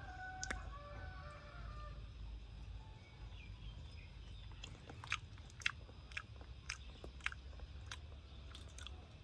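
A baby monkey chewing cooked frog: scattered faint crunches and clicks, more of them in the second half.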